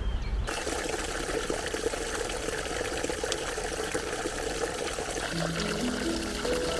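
Water pouring in a steady splashing stream that starts abruptly about half a second in. Soft background music comes in about five seconds in.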